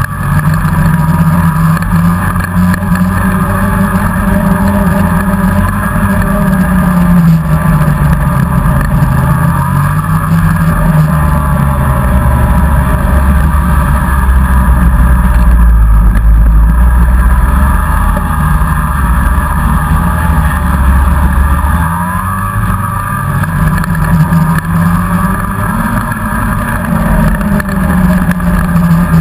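Polaris snowmobile engine running loud and steady under the rider at travelling speed, its pitch rising and falling as the throttle eases and opens. A deeper rumble swells for several seconds past the middle.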